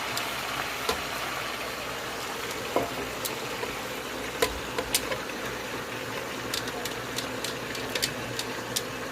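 Chopped collard greens frying in hot grease with ham: a steady sizzle with scattered sharp pops and crackles.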